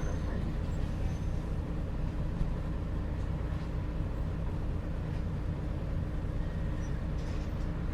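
Bus engine running steadily, heard from inside the passenger cabin: a low drone with a faint hiss over it.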